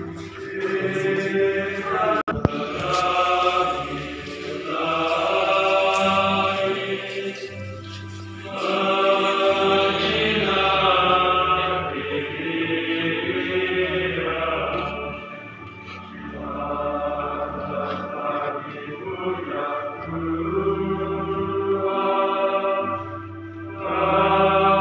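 A group of voices singing a slow hymn in long phrases of several seconds, over low sustained bass notes. A single sharp knock about two seconds in.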